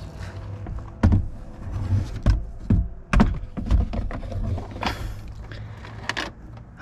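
Irregular knocks and thuds as a heavy 12 V 200 Ah LiFePO4 battery is lowered by its handles into a wooden compartment, bumping against the wood frame. The hardest knocks come in the first half.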